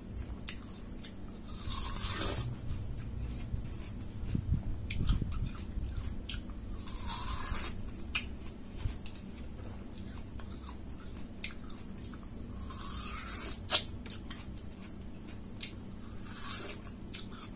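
A person eating watermelon close to the microphone: wet bites and chewing of the juicy flesh, coming in four longer bursts a few seconds apart, with small clicks of chewing between.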